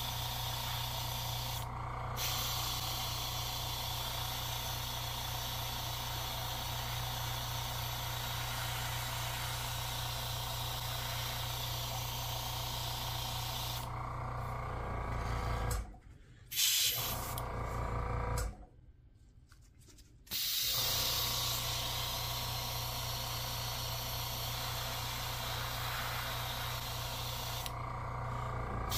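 Airbrush hissing as it sprays paint, over a steady electric hum; the sound drops out twice, briefly and then for about two seconds, around the middle.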